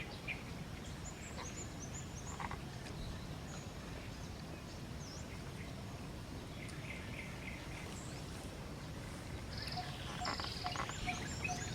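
Outdoor animal ambience: scattered short, high chirping calls over a steady low rumble, with a run of short calls about seven seconds in and busier chirping near the end.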